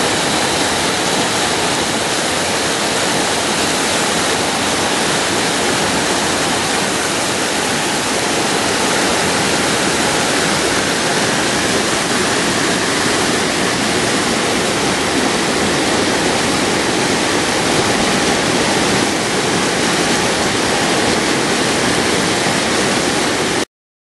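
Rushing river water, a loud steady roar of white water that cuts off suddenly near the end.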